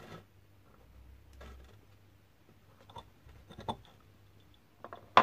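Light handling sounds of a wooden handle, steel bolt and pen on a plywood board: a few small scattered taps and clicks, with a sharper, louder click near the end, over a faint low hum.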